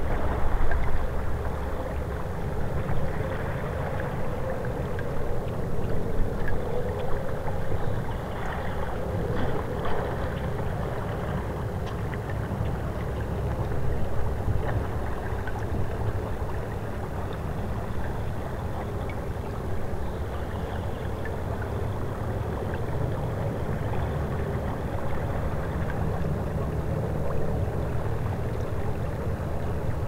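Steady rushing and gurgling of river water moving along a shelf of ice at the bank, with a low rumble underneath and small irregular swells in level.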